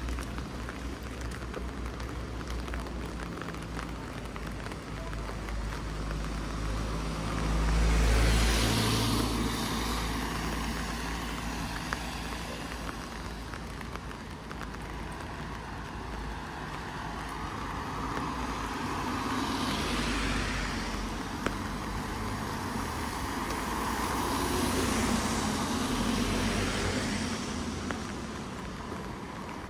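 Cars passing one after another on a wet road, the tyre hiss swelling and fading with each pass. The first, about a quarter of the way in, is the loudest and deepest.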